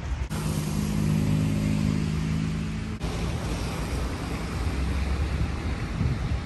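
City street traffic: passing vehicles with a steady engine hum in the first few seconds, the sound changing abruptly twice.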